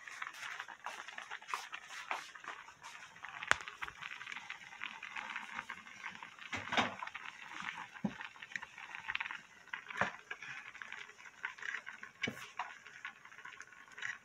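Doenjang noodle soup in a hot earthenware ttukbaegi, still bubbling and crackling off the heat. A few sharper knocks come as the pot is handled with a towel.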